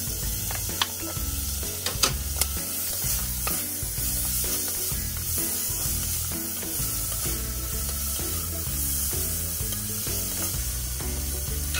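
Chopped tomato, chili, onion and lemongrass sizzling in annatto oil in a pan as they are stirred, with a few sharp taps of the utensil against the pan in the first few seconds.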